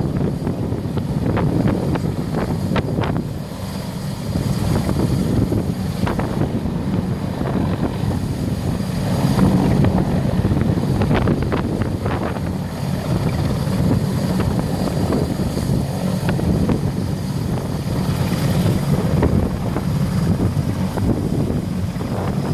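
Large helicopter's rotors and engines running close by, with the rotor downwash buffeting the microphone in gusty waves of wind noise.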